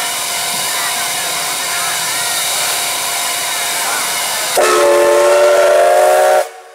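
CK124 steam locomotive hissing steadily with escaping steam, then blowing its steam whistle once, a loud chord-like blast of about two seconds that stops abruptly near the end: the signal before pulling out of the station.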